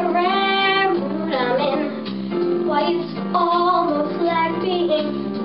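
A young girl singing a song with wavering, held notes over instrumental accompaniment.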